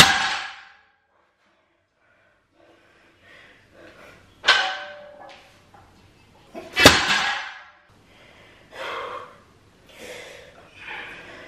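Loaded barbell with iron plates set down on rubber gym flooring between deadlift reps: three sharp clanks with a brief metallic ring, at the start, about four and a half seconds in and about seven seconds in, followed by softer sounds of the bar and the lifter's effort.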